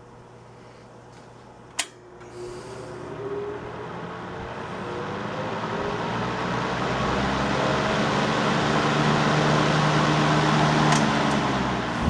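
Early-1950s Schwitzer-Cummings Fresh Air Maker 12-inch box fan. A sharp click comes about two seconds in, then the fan speeds up: the motor hum rises in pitch and the whir of moving air grows louder over several seconds before levelling off at a steady full speed.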